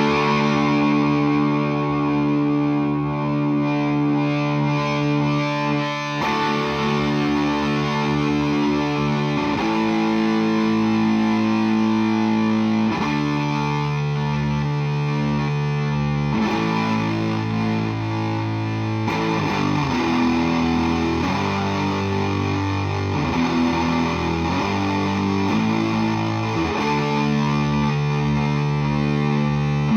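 Electric guitar played through a Flum Dilly distortion and boost pedal, giving distorted chords. The chords ring out for a few seconds each at first, then change more quickly from about two-thirds of the way in.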